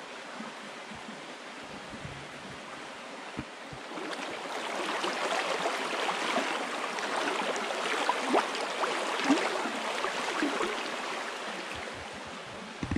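Shallow mountain trout stream running over rocks, a steady rush of water. From about four seconds in it grows louder and gurgles, with a few small splashes, then eases off near the end.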